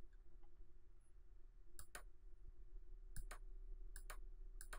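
Faint clicks from a computer mouse scroll wheel, coming in quick pairs from about two seconds in as the page is scrolled. A faint steady hum runs underneath.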